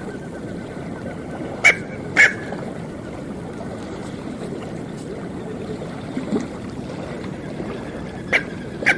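Smew giving short, sharp calls in two pairs: one pair about two seconds in, the other near the end, over a steady background hiss.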